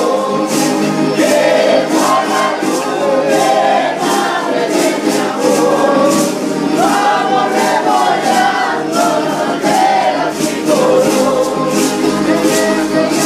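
A group singing a concheros alabanza (praise song) together in chorus, over a steady strummed accompaniment of concheros guitars and armadillo-shell conchas.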